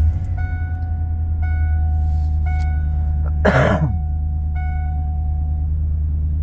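1996 Ford F-150's warning chime beeping over and over, about once a second, over the 302 V8 idling. It is a beep the owner has never heard from this truck and links to the airbag light having gone out. A short cough-like rasp breaks in about three and a half seconds in.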